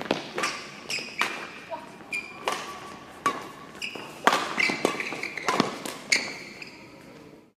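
Badminton play in a hall: a quick run of sharp racket-on-shuttlecock hits, several a second at times, with short high squeaks of shoes on the court floor. It cuts off abruptly near the end.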